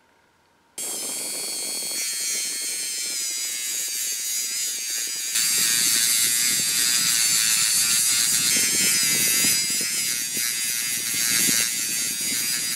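A handheld rotary tool starts about a second in with a steady high-pitched motor whine. From about five seconds in it gets louder, with a rough grinding rasp as its abrasive disc sands the metal latch bolt. It cuts off abruptly.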